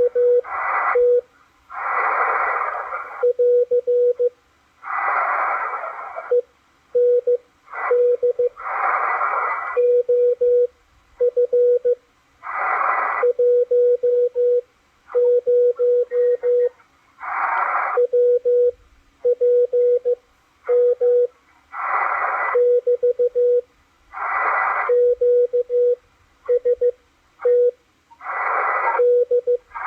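Morse code received on a Malachite DSP SDR receiver: a steady tone of about 500 Hz keyed on and off in dots and dashes. Bursts of band static hiss fill the longer gaps between groups, about every two to four seconds.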